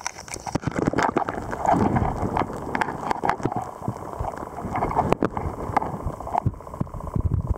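Water sloshing and gurgling around a camera held at the surface of a shallow puddle, with irregular knocks and clicks from the camera being handled against the water and the microphone.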